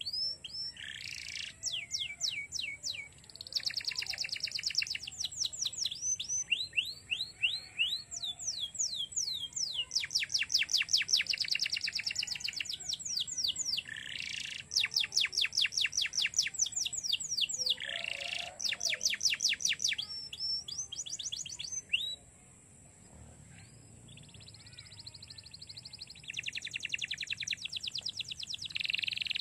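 Domestic canary singing: long, rapid trills of quickly repeated falling notes, in bursts with short breaks and a pause of a few seconds about three-quarters of the way through.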